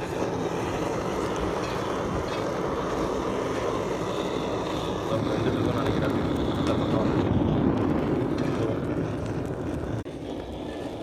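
Handheld gas blow torch flame running with a steady rushing noise, playing over chicken pieces on a hot griddle; it drops quieter about ten seconds in.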